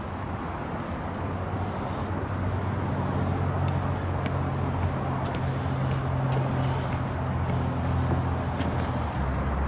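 An engine running steadily, a low hum that grows louder about three seconds in and holds, with a few light ticks scattered over it.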